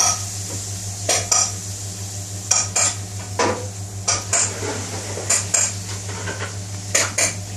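A hand pressing and turning chicken pieces in a plastic tub of dry breadcrumbs: short scrapes and light knocks against the tub, mostly in pairs every second or so, over a steady low hum.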